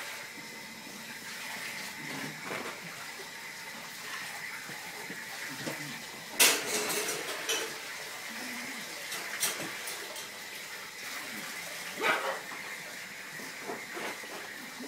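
A puppy and a ferret play-fighting: scuffling and small knocks, with two short, sharp cries, about six and twelve seconds in.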